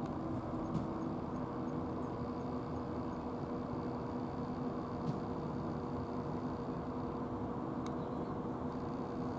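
Steady low mechanical drone with a constant rush of background noise, and a few faint clicks: one about a second in, one midway and one near the end.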